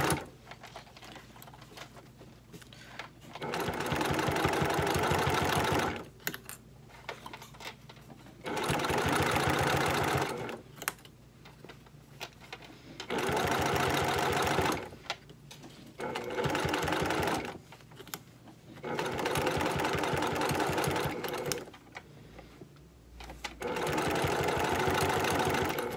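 Sewing machine stitching a seam in about six short runs of two to three seconds each, stopping between runs as the fabric is eased around a curve. Each run has the needle's rapid, even strokes.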